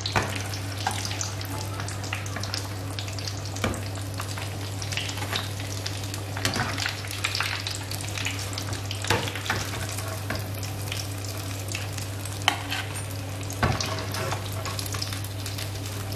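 Breaded chicken bread patties deep-frying in hot oil: a steady sizzle and crackle with a few sharper pops, over a steady low hum.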